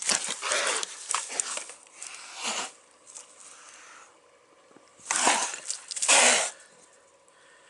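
Feral cat held in a foot snare hissing and spitting in several harsh bursts, the two loudest about five and six seconds in: a trapped, defensive cat.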